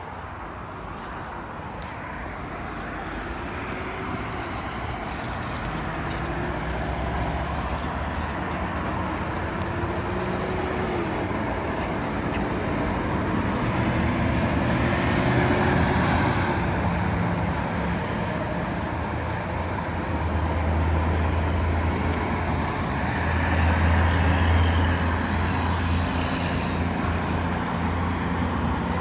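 Steady motor-vehicle and road-traffic noise: an engine running with its pitch gliding up and down, and a low hum that grows louder in the second half.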